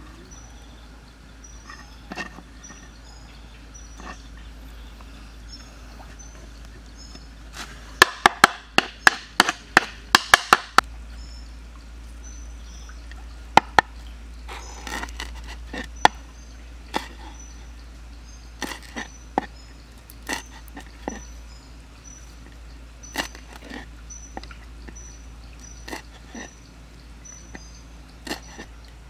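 Knife chopping on a wooden cutting board: a quick run of about a dozen chops about eight seconds in, then single cuts every second or two as raw shrimp are cut up. A short high chirp repeats faintly in the background.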